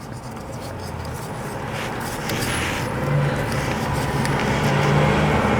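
An engine running steadily, growing louder over several seconds.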